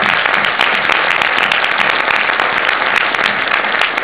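Audience applauding in a cinema hall: dense, steady clapping from many hands.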